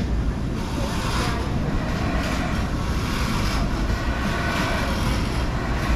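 Hyper Jump amusement ride running, heard from a rider's seat: a steady low rumble with a rushing noise that swells and fades about once a second as the ride moves.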